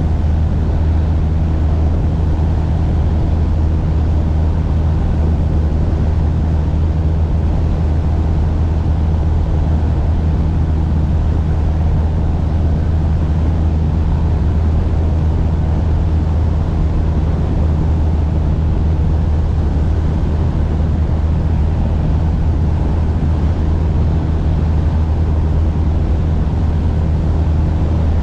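Cessna light aircraft's piston engine and propeller droning steadily at an even, unchanging pitch in cruise flight.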